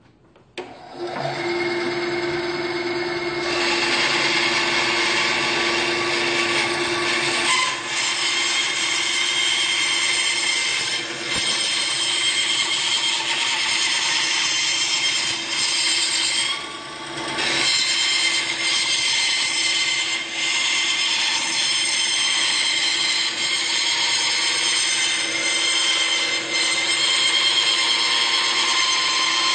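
A SKIL 3386-01 9-inch band saw starts up about half a second in. It then runs steadily while ripping a 13/16-inch African mahogany board along the fence, without slowing down.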